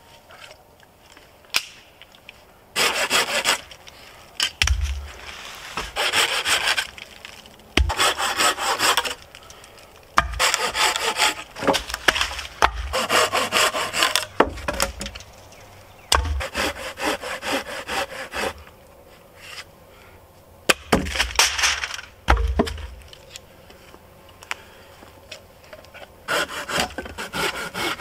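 Wood being worked by hand: spells of rasping strokes on wood, broken by several dull thumps as logs are knocked and set into place. Near the end, a knife blade scrapes and cuts into a stick.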